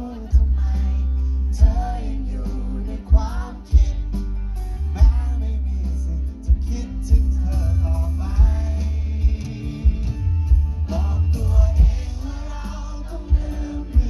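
Live band music: a male singer sings into a microphone over electric bass and drums, with a heavy, booming bass under the voice.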